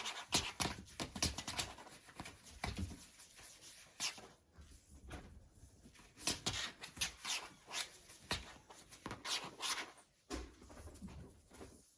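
A Persian kitten moving about: an irregular scatter of short taps, scratches and rustles.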